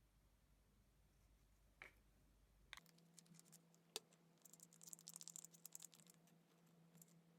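Near silence with a few faint soft clicks, and a short run of quick light taps or scratches about halfway through.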